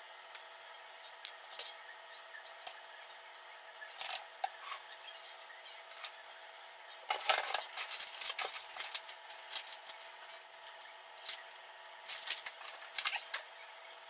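Bottles, jars and food packages being handled and taken out of a refrigerator: scattered clicks and knocks of plastic and glass, with a busier run of clatter and rustling about seven seconds in.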